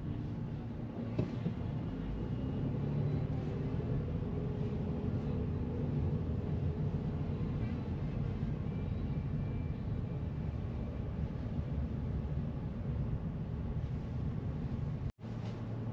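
Steady low road and engine rumble inside the cabin of a car driving slowly down a street. The sound cuts out for an instant near the end.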